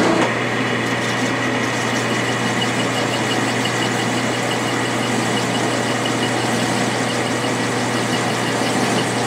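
Metal lathe running steadily, its chuck spinning a vise guide rod as the rod is cut down, with a constant low hum.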